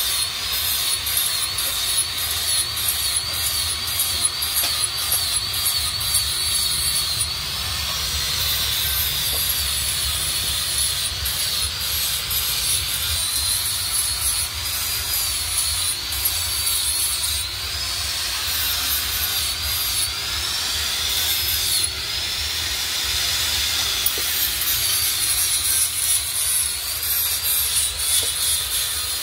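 Angle grinder grinding a steel knife blade, its high motor whine dipping and recovering over and over as the blade is pressed against the disc and eased off.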